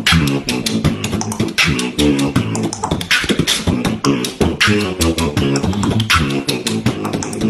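A man beatboxing: rapid mouth-made kicks, snares and clicks, with a hummed line of pitched notes shifting underneath.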